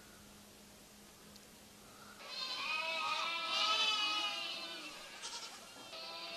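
A flock of small livestock bleating, many calls overlapping at once, starting about two seconds in and loudest near the middle.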